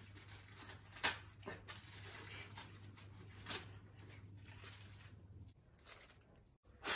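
Sanitary pad being unwrapped by hand: faint, brief rustles and tears of its plastic wrapper and backing paper, over a low steady hum that stops about five seconds in.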